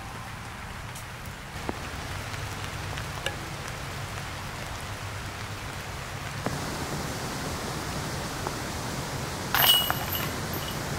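Steady outdoor background hiss with a few faint clicks, and a brief louder ringing sound near the end.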